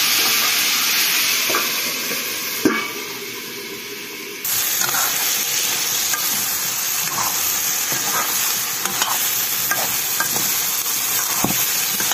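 Potato curry frying and sizzling in a pan while it is stirred, with scattered scrapes and knocks of the stirring utensil against the pan. A sharp knock about two and a half seconds in, then the sizzle drops quieter and returns abruptly at full strength.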